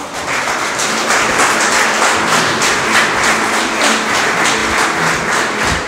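An audience in a hall applauding, a dense run of hand claps, over quiet background music.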